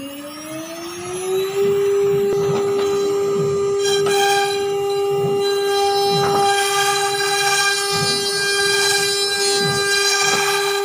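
CNC router spindle winding up with a rising whine that levels off into a steady high whine about a second and a half in, its end mill cutting a coconut-fibre composite board. A rough, uneven cutting hiss grows stronger from about four seconds in.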